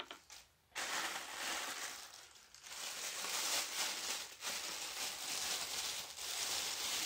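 Clear plastic packaging crinkling as it is handled, a continuous rustle starting about a second in.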